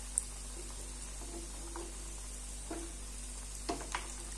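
Bread-crumbed sausage hot dogs deep-frying in hot oil, a steady sizzle. Metal tongs click against the pan once about a fifth of a second in and twice in quick succession near the end.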